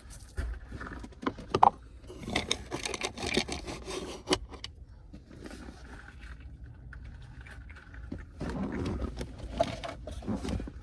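Hand-tool and screw handling on a car door panel: irregular clicks, rattles and scrapes as the door-panel screws are put back in. A sharp click comes about a second and a half in.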